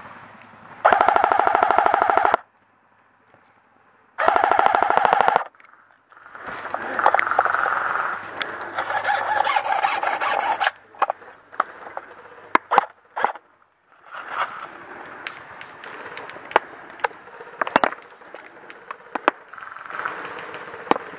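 An electric airsoft rifle firing two full-auto bursts of rapid, even shots, the first about a second and a half long and the second about a second. They are followed by rustling and scattered sharp clicks.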